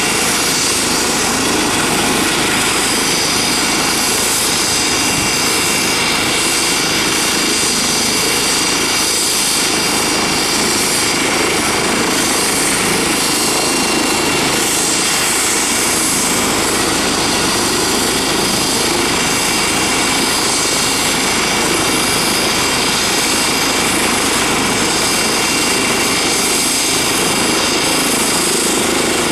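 Eurocopter EC135 twin-turbine helicopter running on the ground with its main rotor turning, not yet lifted off. A steady high turbine whine sits over the noise of the rotor, holding even throughout.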